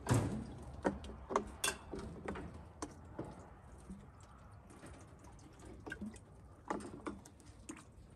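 Irregular clicks and knocks of a plastic watering can being handled against metal crate fittings while water is poured into them, starting with one louder knock and bunched in the first few seconds, with a few more near the end.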